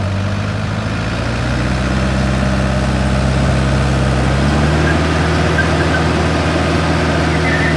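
Diesel engines running steadily under load while a Kubota DC70 combine harvester tows a truck stuck in mud, slowly growing louder. The engine note changes about four and a half seconds in.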